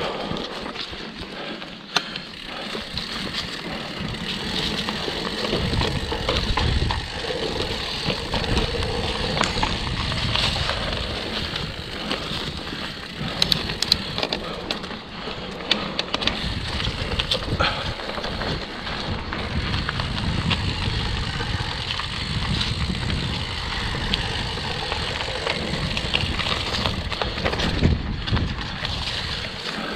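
Mountain bike riding down a dirt forest trail: tyres rolling over dirt and leaves with the bike rattling, steady ride noise with a low rumble and scattered sharp clicks and knocks over bumps.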